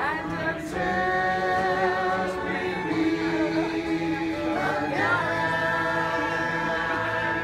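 A small mixed group of men's and women's voices singing a folk song together in harmony, holding long notes, accompanied by a strummed acoustic guitar and a wooden flute.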